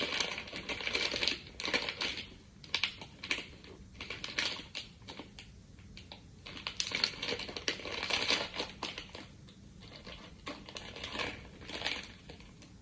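Crinkling and rustling of a Sonny Angel blind box's packaging being handled and opened: a dense run of small crackles and clicks that comes in uneven bursts, heavier near the start and again around the middle.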